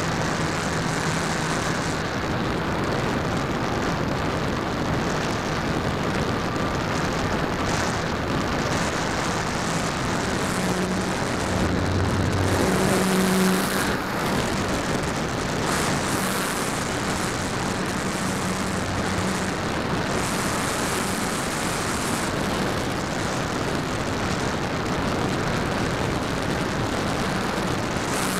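E-flite Apprentice S 15e RC trainer heard from on board in flight: its electric motor and propeller run steadily under constant wind rush on the small camera's microphone. About halfway through the sound swells for a couple of seconds, then drops suddenly.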